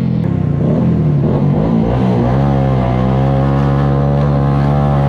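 Motorcycle engine running, its pitch rising and falling for the first couple of seconds, then holding steady.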